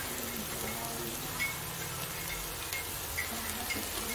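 Onions and spices frying in hot ghee in an aluminium karahi: a steady sizzle with small crackles and pops.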